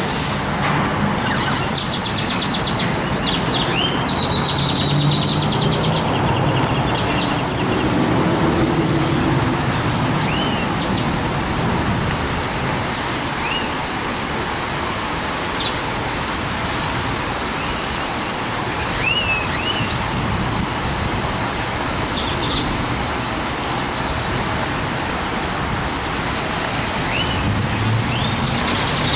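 Mark VII ChoiceWash XT rollover car wash running: a steady rush of water spray and machinery. Birds chirp now and then.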